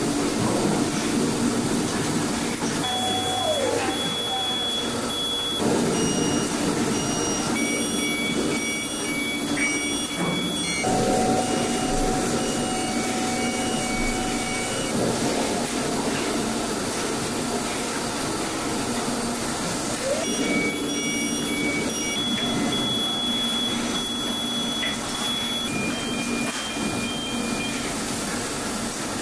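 SMT assembly line machinery running: a steady whirring hum from pick-and-place equipment. Repeated high electronic beeps and tones come and go in two spells, a few seconds in and again after about twenty seconds.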